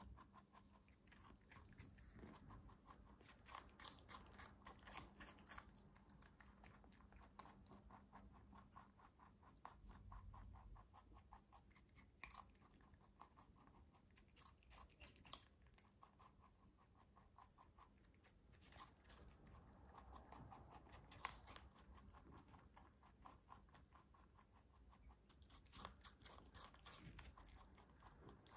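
A lop-eared rabbit biting and chewing a raw whole cucumber: a quiet, steady run of small wet crunches, with one sharper crunch about three-quarters of the way through.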